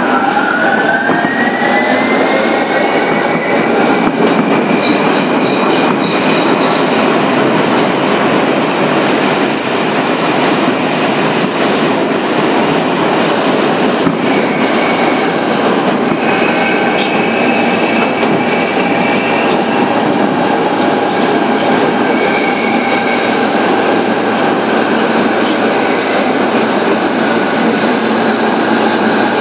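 Kawasaki R-143 subway car with Bombardier MITRAC traction motors running, their high-pitched whine rising over the first few seconds and then holding steady, over the rumble and clatter of steel wheels on rail.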